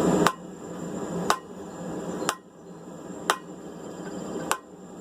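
Blacksmith's hammer striking a hot 3/8 by 1 inch steel bar on the anvil, five sharp blows about a second apart, each with a short ring.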